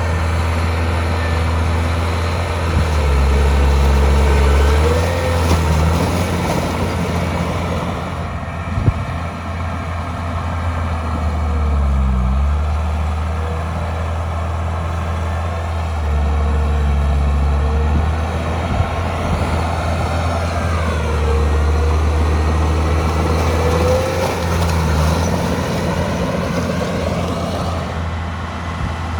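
Heavy diesel earthmoving machinery running loud and steady, its engine pitch rising and falling several times as it works.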